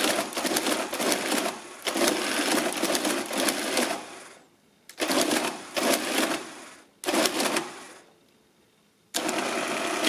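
Marchant ACT-10M electric mechanical calculator running in about six short bursts, a second or two each, with brief pauses between. Each burst is one cycle of its gearwork as a digit entered on the multiplier keys is added to the main register and subtracted from the counter, moving the counter's value across to the main register.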